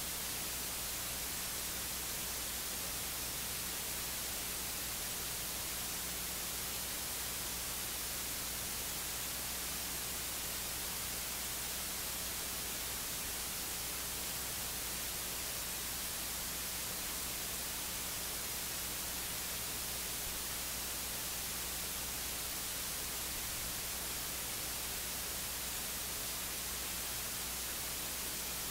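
Steady electronic hiss, strongest in the highs, with a low steady hum underneath and no voice: the sound of a recording whose audio feed has dropped out.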